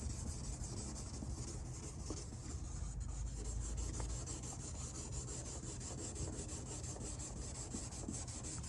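Rain-X restoration kit sanding pad rubbed quickly back and forth by hand over a lubricated, oxidized plastic headlight lens, in a steady, even rhythm: wet-sanding the yellowed lens to cut off the oxidation.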